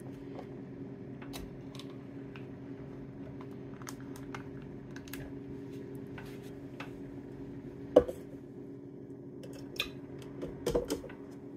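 Steady hum of a Ninja Speedi air fryer running on its steam setting, with light clicks and taps of a plastic yogurt tub being opened and handled. A sharp knock about eight seconds in, and a few clattering knocks near the end.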